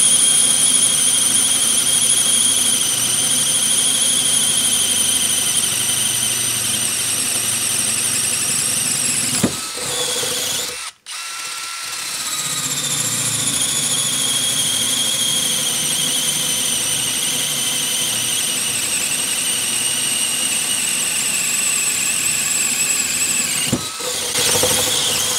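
DeWalt 12V Xtreme screwdriver set to maximum speed, drilling holes in a wooden post with a long bit. Its motor and gears give a steady high whine that sags slightly in pitch under load. It stops for about a second roughly eleven seconds in, between holes, then runs again, with a brief dip near the end.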